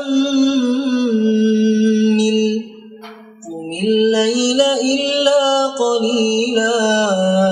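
Melodic Quran recitation by a solo reciter, chanted in long drawn-out held notes with slow turns of pitch, pausing for breath about three seconds in.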